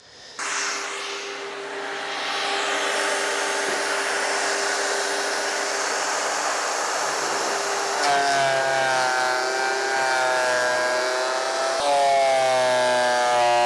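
Benchtop thickness planer running with a board fed through it: a steady loud motor and cutterhead noise, with a pitched hum that comes in about eight seconds in and again, louder, near the end. The planer is working under load on a nearly full-width cut through a glued-up laminated board.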